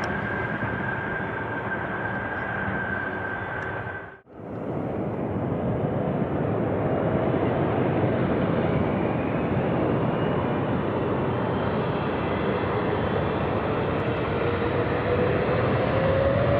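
Jet airliner engine noise close by, first with a steady high whine, broken by a brief dropout about four seconds in; afterwards the jet noise continues with an engine whine slowly rising in pitch.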